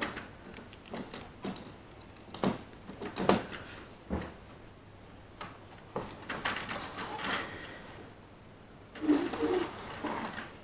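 An old model locomotive's small electric motor whirring in short spurts as it is nudged by hand along the track. Its wheels click and knock on the rails in between. It stalls instead of running, and the owner wonders whether its electrical pickups are to blame.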